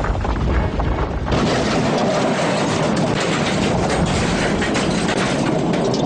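Low rumble of a huge boulder rolling along, then a little over a second in a sudden loud crash that turns into an explosion, its noisy blast carrying on.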